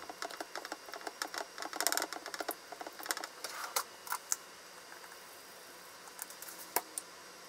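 A spoon stirring and mashing soft tofu in a ceramic gratin dish, clicking and scraping against the dish. It goes quieter a little past halfway, with a couple of sharp clicks near the end.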